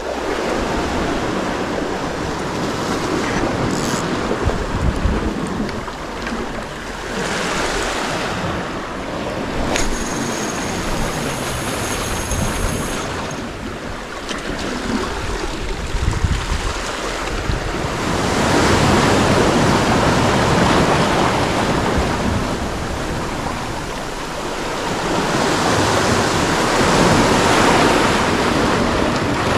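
Sea surf washing and breaking against rocks in long surges that swell and fade, with wind on the microphone.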